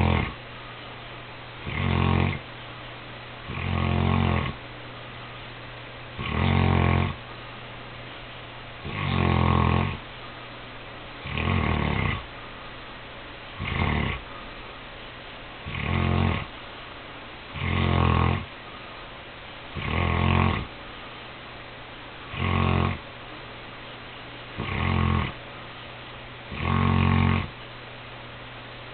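Saint Bernard snoring in its sleep: one loud snore about every two seconds, in an even rhythm.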